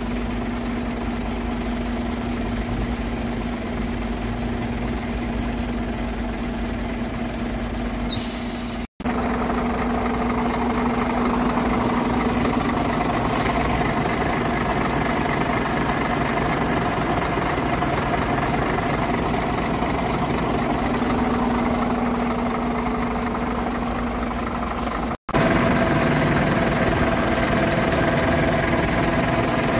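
2018 Scania R-series truck's diesel engine idling steadily, heard close to the chassis. The sound drops out briefly about 9 and 25 seconds in and comes back a little louder each time.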